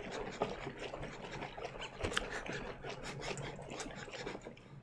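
A full plastic jug of apple juice and honey shaken hard by hand to mix and aerate mead must: a quick, irregular run of rubbing and knocking as the jug moves in the hands.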